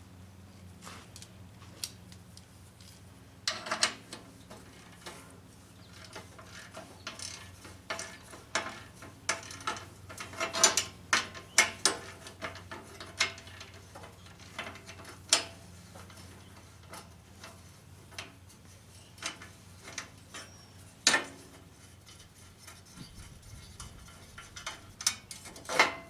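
Ratchet wrench clicking and metal hand tools clinking in irregular bursts while unbolting a lawn mower's front bumper, over a faint steady low hum.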